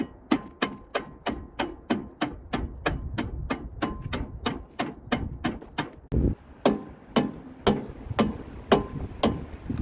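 Rapid, steady hammer blows, about three strikes a second, slowing to about two a second after a short break some six seconds in; some strikes carry a faint ring.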